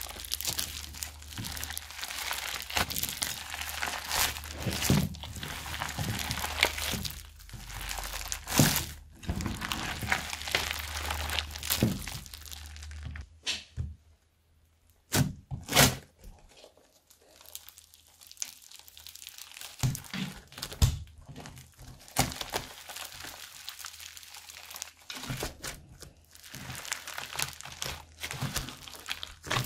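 Floam slime thick with tiny foam beads being kneaded and squeezed by hand, giving dense crunchy crackling with sharp pops and clicks. About halfway through it goes nearly quiet for a moment, then two loud pops, and the crackling resumes as the slime is pressed and stretched.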